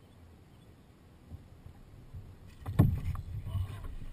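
Water sloshing and knocking around the hulls of a WaveWalk W500 twin-hull kayak. It starts about two and a half seconds in after near quiet, with low rumbling and a few sharp knocks, the loudest just under three seconds in.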